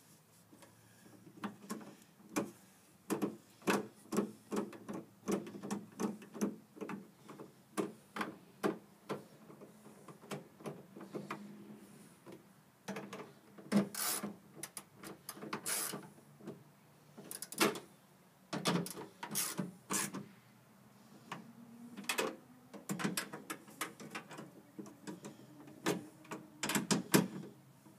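Hand ratchet wrench clicking in short, irregular runs as it tightens the nuts that hold a tailgate handle, with louder, sharper clicks in the second half.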